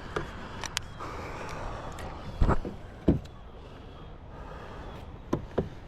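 A few short, dull knocks over a low steady background, two close together near the middle and two more near the end.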